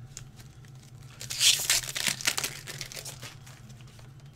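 Foil wrapper of a Pokémon TCG booster pack crinkling and tearing as it is opened, loudest from about one to three seconds in.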